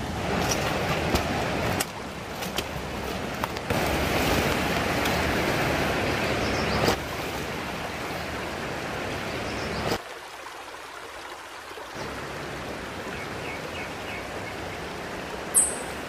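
Rushing river water, a steady noisy rush whose level jumps up or down abruptly several times, with a few light clicks in the first few seconds.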